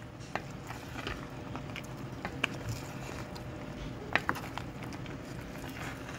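Wooden spoon stirring thick okra soup in an enamelled cast-iron pot: scattered sharp clicks and small knocks of the spoon over a steady low hiss, the loudest a double knock about four seconds in.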